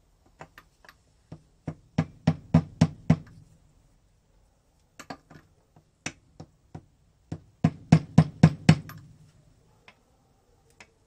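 Hammer blows on a metal tube used as a seal driver, tapping the magneto-side crankshaft oil seal into the D50B0 engine's crankcase. Sharp knocks come in two runs, each starting with light taps and building to hard blows about three a second, with a short pause between them.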